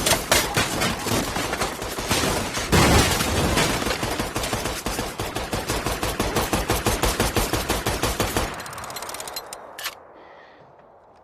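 Sustained automatic gunfire, many weapons firing rapid bursts at once, with a heavy blast about three seconds in. The firing thins and dies away about eight to nine seconds in, and a single sharp shot rings out shortly after.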